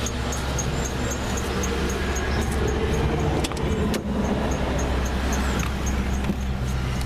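Ford Crown Victoria's V8 engine idling steadily, with a faint high tick repeating about three times a second and a couple of sharp clicks about halfway through.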